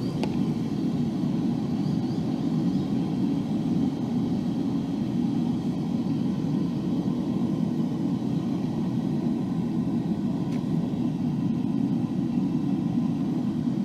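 Gas burner of a home-built forge running as a melting furnace, giving a steady, even low rushing noise with no change in pitch or strength.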